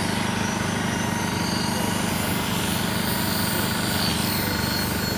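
Electric RC helicopter's rotor blades buzzing with a fast, steady chop as it flies stunts.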